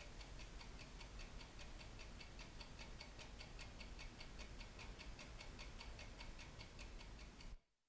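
A mechanical watch ticking fast and evenly, several ticks a second, faint, then cutting off abruptly near the end.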